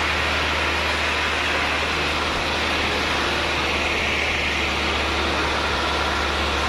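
Bull Power 585 tractor's diesel engine running steadily under load as it pulls a disc implement through the soil, a constant low engine hum with no revving.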